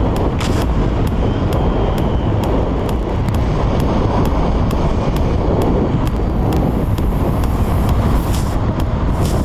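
Motorcycle riding at road speed, heard from a camera mounted on the bike: steady engine and road noise under heavy wind rush on the microphone.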